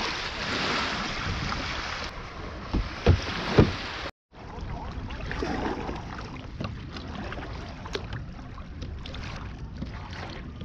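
Small waves washing onto a sandy shore with wind on the microphone, broken by three dull knocks around three seconds in. After a short break, water sloshes against the hull of a moving kayak, with wind noise.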